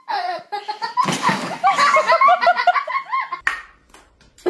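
A person laughing in a rapid string of short bursts, after a sudden noisy burst about a second in; a sharp click follows near the end.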